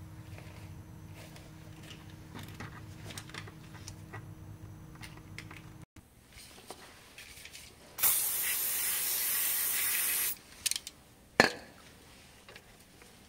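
A spray hissing loudly and evenly for about two and a half seconds, a little past halfway through, over the brake parts being worked on. Before it there are light tool clicks over a low steady hum, and a single sharp click comes near the end.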